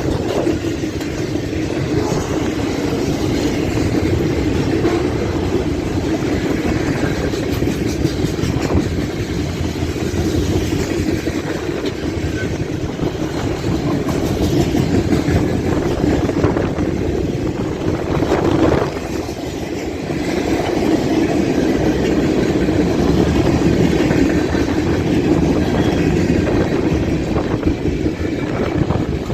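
Freight train rolling past on the rails, a steady heavy rumble with wheels clacking over rail joints, with strong wind buffeting the microphone.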